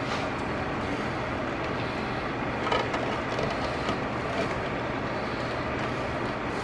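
Steady background hum and hiss, with a few light knocks and clicks between about three and four and a half seconds in.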